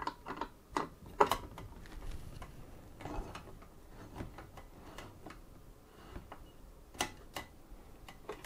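Screwdriver turning the mounting screws of a Silverstone Hydrogon D120 ARGB CPU cooler as they are tightened a few turns at a time: scattered sharp clicks and ticks, the loudest about a second in and a pair about seven seconds in.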